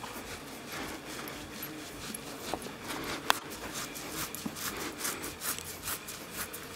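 The microphone rubbing and brushing against a horse's mane and coat: a run of scratchy crackles and small clicks that grows denser in the second half, with one sharper click about a third of the way in.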